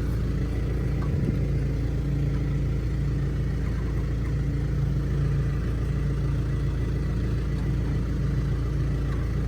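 Tractor engine idling steadily, with a faint tap about a second in.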